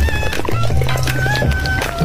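Background pop music with a steady beat, a bass line and a gliding melody.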